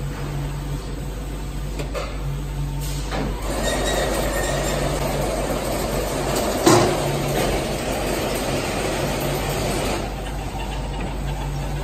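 Fiber cement board painting line running: a steady machine rumble with a low hum that keeps cutting in and out. A rushing noise swells about three seconds in as a coated board feeds out onto the roller conveyor, and eases off near the end. One sharp knock comes a little past halfway.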